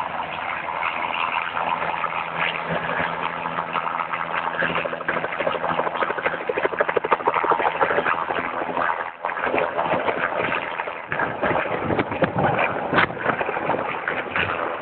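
Bell 206 JetRanger helicopter coming in close and hovering low to land: turbine engine and two-blade main rotor running, with a fast, even blade beat in the middle. In the second half, rotor downwash gusts irregularly across the microphone.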